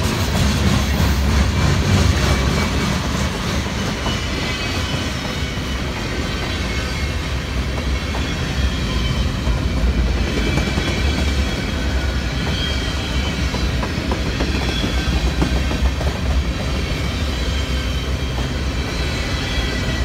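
CSX freight train cars, boxcars and tall open-top hoppers, rolling past close by: a steady, loud wheel-and-rail rumble with clattering over the rail joints.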